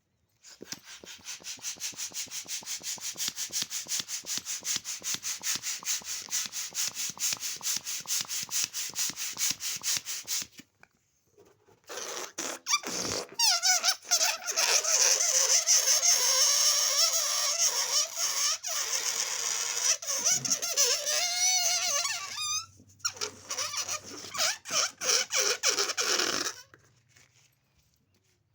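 Balloon pump running with a rapid, even pulsing for about ten seconds. Then a rubber balloon squeaks and squeals in wavering, sliding tones, and near the end the pump pulses briefly again.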